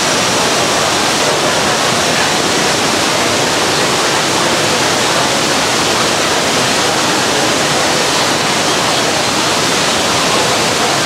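Steady, loud rush of falling water from a nearby waterfall, an even unbroken hiss with no changes.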